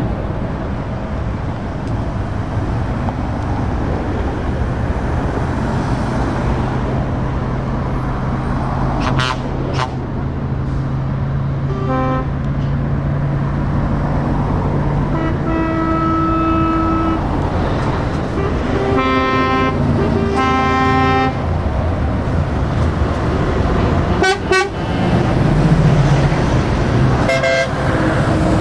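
Lorries and cars passing slowly in a convoy, their diesel engines running steadily. Truck horns sound several times in the middle: a short toot, a longer held note, then two longer blasts close together. Two short sharp sounds come near the end.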